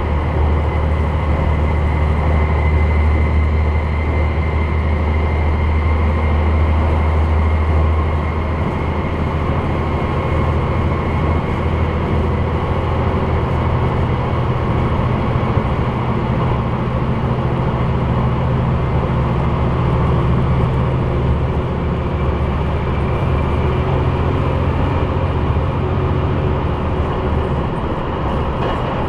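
The diesel engines of a KiHa 187 series railcar run under power, heard from inside the passenger car as a deep, steady drone over track rumble. A high-pitched whine, which the uploader takes for the transmission gears, fades about eight seconds in, and the engine note shifts at the same time.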